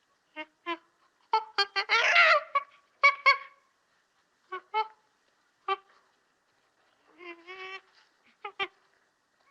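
Stock monkey sound effects: a series of short, pitched hoots and calls separated by silences, with a loud screech about two seconds in and a warbling chatter near the end.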